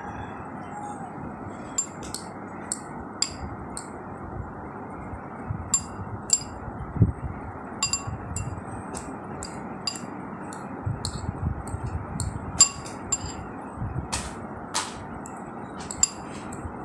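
A utensil clinking against a bowl while boiled eggs are mashed in it: irregular light strikes, each with a short high ring, over a steady background hiss.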